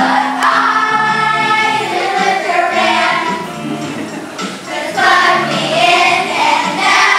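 A group of children singing a song together over instrumental backing, starting up loudly right at the beginning.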